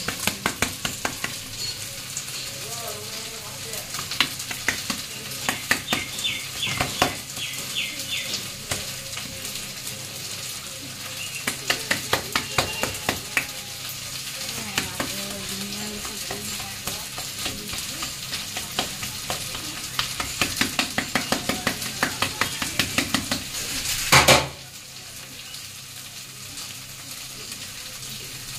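Hands patting and pressing a cooked lentil-paste mixture for dhoka flat in a steel plate, with a steel spoon smoothing and tapping it against the plate near the end. The taps come in rapid runs over a steady hiss, with one brief loud rush near the end.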